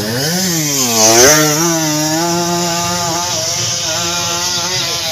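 Small motorcycle engine revving hard as a trail bike climbs a steep dirt hill: the revs climb, dip briefly, shoot up again about a second in, then hold high and steady.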